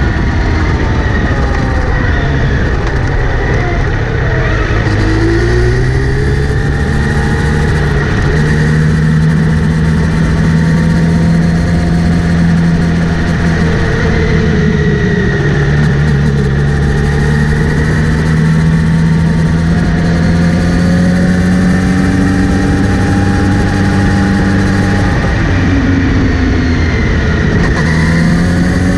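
Kawasaki Z900RS inline-four engine running, its pitch rising and falling a few times as it is revved up and eased off, with a steady high-pitched whine throughout. The whine fits the whirring the owner hears under acceleration or in gear, which he traces to the front sprocket area after cleaning and relubing the chain.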